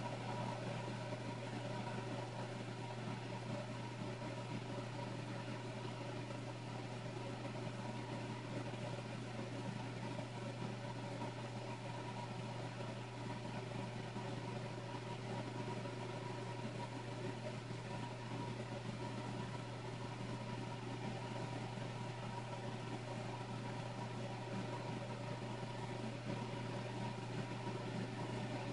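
Steady low machine hum with a few constant tones above it, unchanging throughout.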